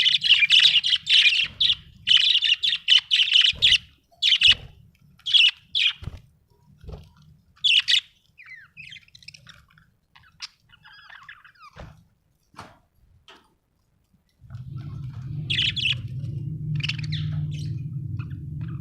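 Budgerigars chirping and chattering, in dense rapid runs for about the first four seconds, then in scattered chirps with a lull in the middle. A steady low hum comes in about three-quarters of the way through, under a few more chirps.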